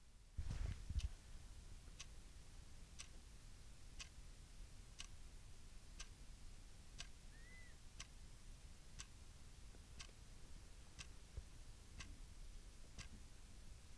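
Clock ticking faintly and evenly, about once a second, with a low thump about half a second in.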